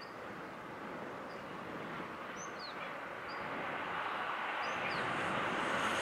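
JR East E653-1000 series electric train approaching along the line, its running noise growing steadily louder. A bird gives several short, high, downward-sweeping chirps over it.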